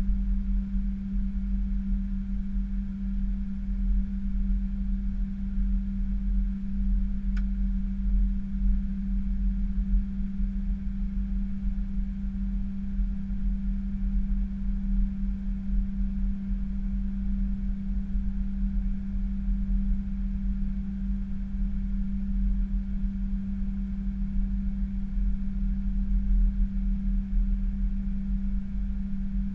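Airliner cockpit noise as the aircraft rolls down the runway: a steady low rumble with a constant hum, holding the same level and pitch throughout.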